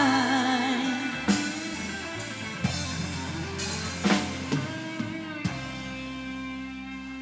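Band with electric guitars and drum kit playing the instrumental ending of a country ballad, with a few drum hits, then a final chord held and ringing out from about five and a half seconds in.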